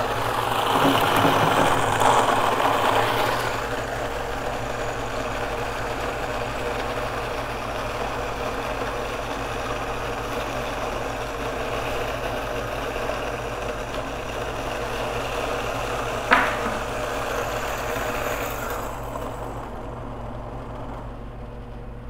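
Fellow Ode flat-burr coffee grinder running under a load of whole beans: a steady motor hum with grinding noise, rougher in the first few seconds. There is one sharp knock about two-thirds of the way through, and near the end the grinding sound thins as the motor nearly stalls.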